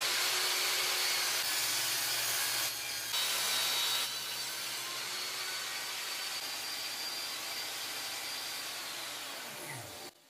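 Einhell 1800 W table saw running and cutting through a wooden board, a steady motor whine under the noise of the blade in the wood. Near the end the motor winds down, falling in pitch.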